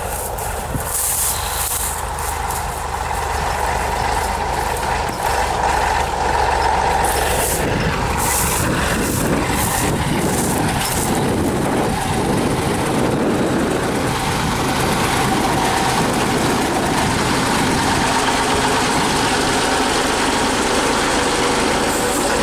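Diesel engine of a T-150K wheeled tractor running close by, growing louder and steadier about eight seconds in. Scattered rustling is heard over it in the first seconds.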